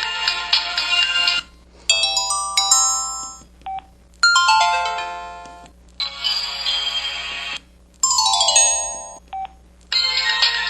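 KTF-X5200 mobile phone playing its built-in ringtone and effect sounds one after another, each a short electronic melody of one to two seconds with brief gaps between. One is a quick rising run of notes and another, near the end, a fast falling run.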